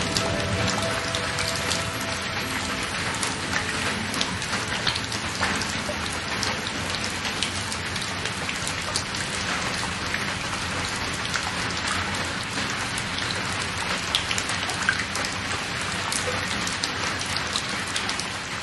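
Rain falling steadily, a dense patter of drops, with the last faint music notes dying away in the first second or two.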